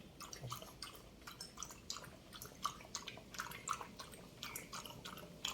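Pug lapping water from a bowl: a run of soft, quick, irregular wet laps and clicks.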